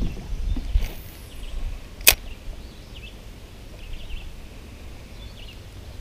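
Wind rumbling on the microphone, with one sharp click about two seconds in and faint high chirps.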